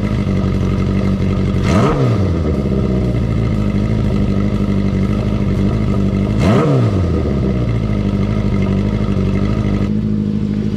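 Honda CB400Four's air-cooled inline-four idling steadily through a Yoshimura short exhaust whose silencer has just been repacked with glass wool, blipped twice: a quick rise and fall in revs about 2 s in and again near 7 s in.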